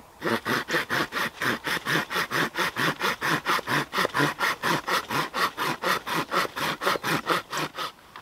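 Hand saw cutting through a wooden branch with steady back-and-forth strokes, about four a second, stopping just before the end.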